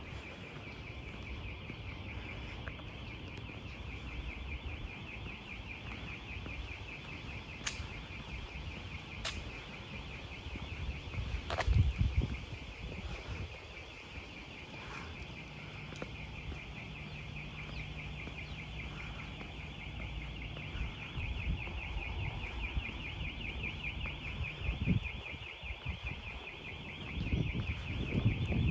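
A steady high buzzing trill, rapidly pulsing, over a low rumble of outdoor noise, with a few sharp clicks and a short louder rumble about twelve seconds in.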